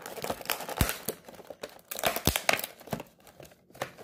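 Stiff clear plastic clamshell packaging being pried and peeled open by hand, crinkling and crackling in irregular sharp snaps.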